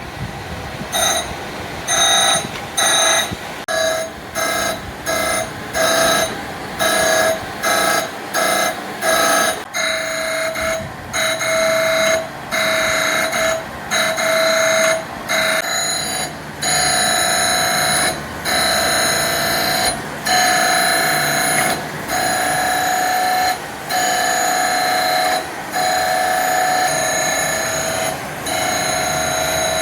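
Pulsing electronic tones in a steady rhythm, switching to a different pitch about ten seconds in and again near sixteen seconds, after which the notes are held longer.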